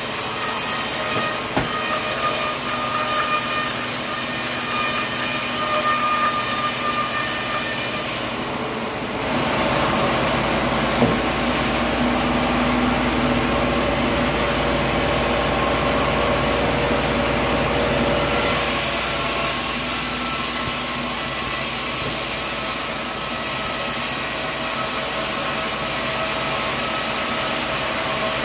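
Sawmill machinery running steadily while sawing a coconut log, a mechanical din with several steady whining tones. From about nine to eighteen seconds in the sound turns deeper and rumbling, with less high hiss, then returns to its earlier character.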